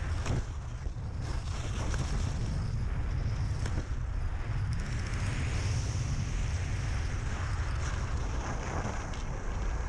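Wind rushing over the microphone of a camera on a fast-moving skier, a steady low rumble, with the hiss of skis carving across groomed snow swelling and fading through the turns. A few short clicks sound in the first few seconds.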